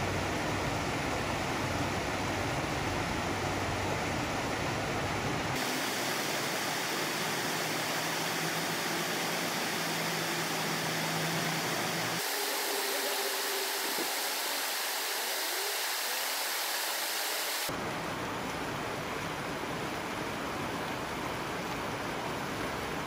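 Water rushing steadily out of culvert pipes under a stone causeway and splashing into a shallow stream. Its tone shifts abruptly a few times.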